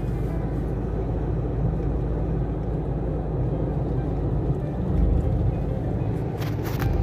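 Steady road and engine rumble of a moving car, heard from inside the cabin, with a short hiss near the end.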